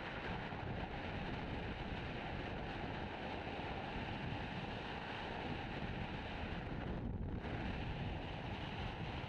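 Steady wind and road noise of a vehicle driving along an open road.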